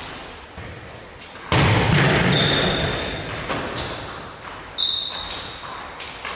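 Indoor football being played in a sports hall: a hard thump of the ball about one and a half seconds in, ringing on in the hall's echo, then smaller thumps, with short high squeaks of trainers on the wooden floor.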